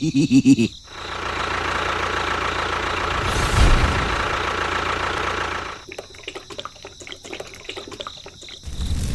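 A small motor whirring steadily for about five seconds, then a rapid rattle of clicks, with a louder low rumble starting near the end.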